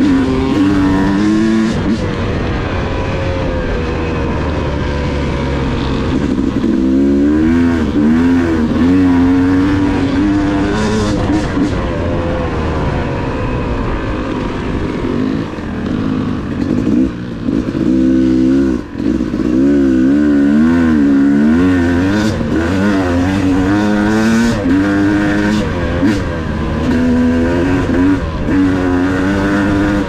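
Yamaha YZ250 two-stroke dirt bike engine heard from the rider's seat while riding. Its pitch rises and falls over and over with the throttle, with a brief drop-off about two-thirds of the way through.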